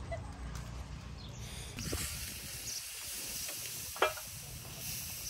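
Pot of frog and crab soup at a rolling boil over a wood fire, from about two seconds in: a steady hissing bubble, broken by a sharp knock about four seconds in. Before it, a low rumble.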